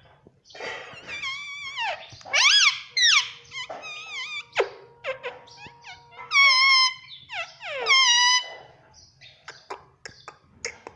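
Pet parrot squawking: a run of loud calls that sweep up and down in pitch, the loudest about a quarter and about two-thirds of the way in, then short chirps and clicks near the end.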